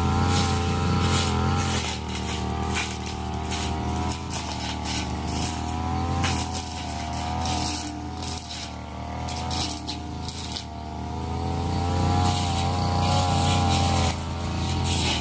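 Brush cutter engine running hard while clearing scrub, its pitch wavering as the blade meets the brush, with sharp snaps and crackles through it. The engine note sags in the middle and climbs again near the end.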